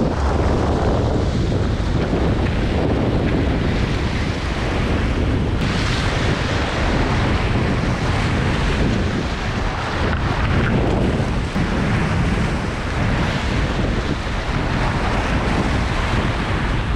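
Ocean surf washing and breaking against the jetty rocks, with wind buffeting the microphone in a steady low rumble.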